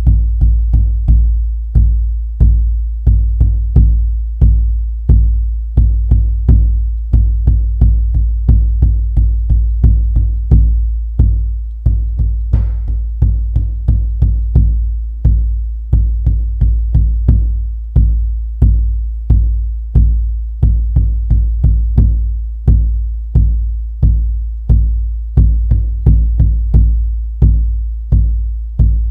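A deep drum beaten in an uneven pattern of single and paired strikes, about two to three a second. It is the rhythm of a Gene Keys drumming chart, where each open line of a hexagram gets two beats and each closed line one.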